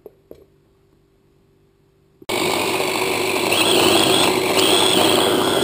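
Kenwood electric mini chopper's motor running, chopping bread, cheese and cold butter into a paste. After two light taps near the start, the motor starts suddenly about two seconds in and runs loud and steady, with a high whine.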